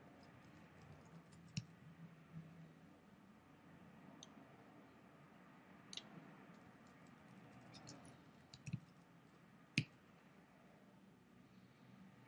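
Faint, sparse keystrokes and clicks on a computer keyboard as code is typed, with a few louder taps.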